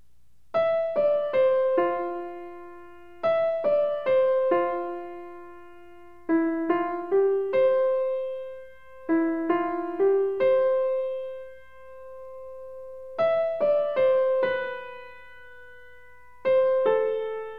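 Background music: a slow solo piano melody in short falling phrases of a few notes, each note left to ring out.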